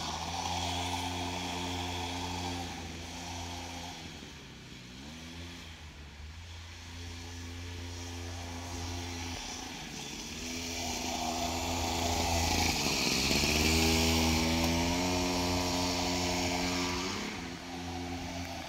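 Small dirt bike engine running, its pitch dropping and then climbing again several times as the throttle is eased off and opened back up. The engine is loudest about two-thirds of the way through.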